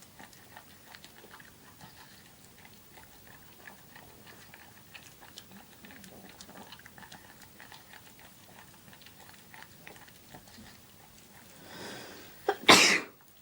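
Pug eating Weetabix, with faint scattered wet clicks and smacks of chewing and licking. Near the end comes a sudden loud, short burst of sound.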